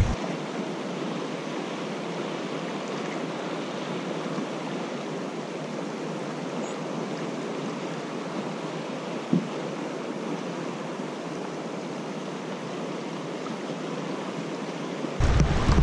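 Fast-flowing river water rushing steadily past rocks, with one short knock about nine seconds in.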